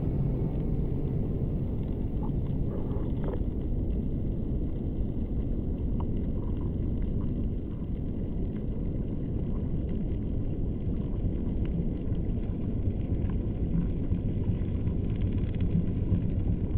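Underwater ambience picked up by a camera in its housing on a reef at about 21 m: a steady low rumble of water noise with scattered faint clicks.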